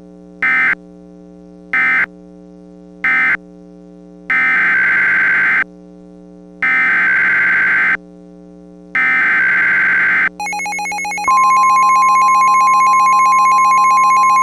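Emergency Alert System SAME header data bursts: screeching digital tones in three short bursts, then three longer ones, over a steady hum. About ten seconds in, a loud buzzy alarm starts, and a steady Weather Radio warning alarm tone sets in and holds, signalling that a new warning is about to be broadcast.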